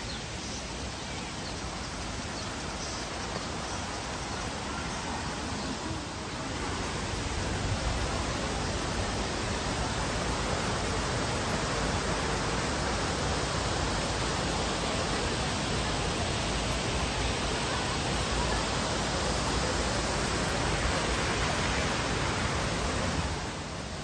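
Steady rush of water from a river's waterfall and rapids. It grows louder about six seconds in and drops off shortly before the end.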